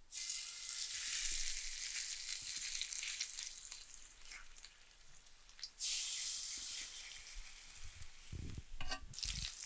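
Seasoned red snapper fillets sizzling as they are laid into hot olive oil in a cast iron skillet. The sizzle starts at once and slowly dies down, then flares again about six seconds in as the second fillet goes in. A few light knocks come near the end.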